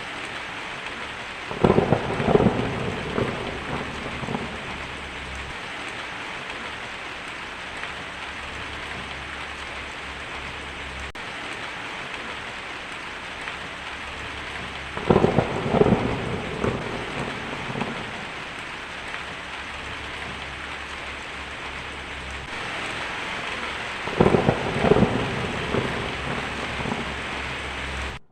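Heavy rain drumming steadily on a tin roof, with three claps of thunder that each crackle and rumble for a couple of seconds: about two seconds in, in the middle, and near the end.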